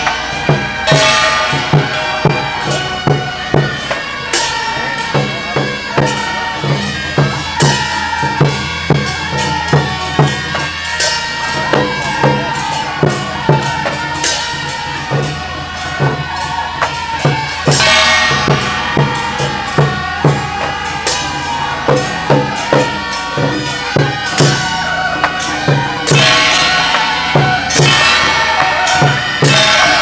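Taiwanese temple procession music: a suona (shrill double-reed horn) plays a melody over a steady drum beat about twice a second, with clashing cymbals.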